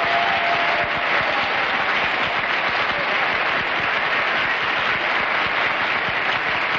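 Studio audience applauding steadily: dense, even clapping from many hands.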